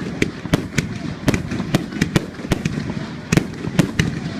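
Fireworks going off: an irregular run of sharp bangs and cracks, several a second.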